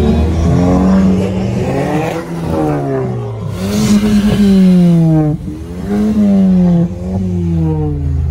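Car engine being revved repeatedly, its pitch climbing and dropping back several times in quick succession.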